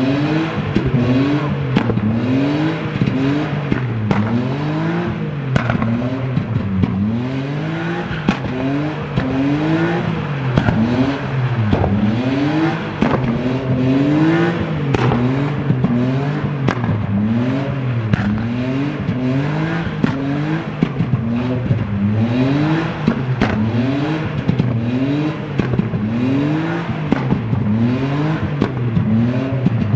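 BMW E36 Touring estate drifting in circles, its engine revved up and down over and over, about once a second, with a few sharp cracks along the way.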